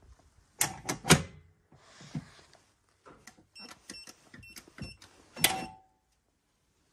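Secustar pistol safe: its metal lid is pushed shut with a couple of sharp clicks and thuds about half a second in. Then its keypad buttons are pressed, each giving a short electronic beep, and a loud clack with a brief ring follows about five and a half seconds in as the lock releases.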